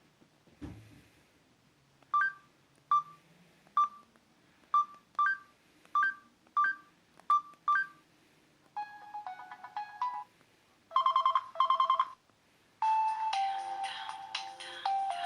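Samsung C3530 mobile phone speaker playing its built-in tones: about nine short identical beeps at uneven intervals, then short snippets of different ringtones that start and stop, including a fast trill about 11 seconds in and a melody from about 13 seconds. A soft knock comes just under a second in.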